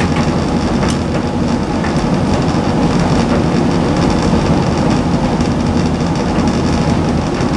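Hoover Visiontech Infinity tumble dryer running on its extra dry cycle, its drum turning with a load of laundry. It makes a steady mechanical noise, with a faint click now and then.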